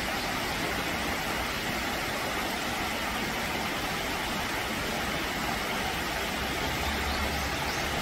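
Mountain stream running over boulders in small cascades: a steady rush of water.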